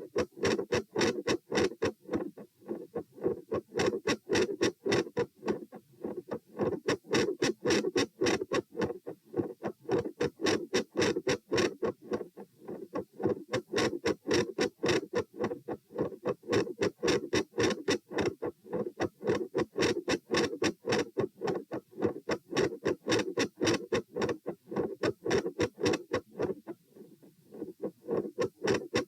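Heart sounds through a stethoscope: a fast, regular lub-dub of the first and second heart sounds, about 100 beats a minute. Their loudness rises and falls every few seconds in phasic intensity changes of S1 and S2, and the second sound is split.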